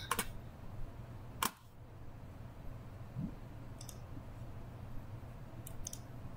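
A handful of sharp, isolated computer-mouse clicks, the loudest about a second and a half in, over a faint steady low hum.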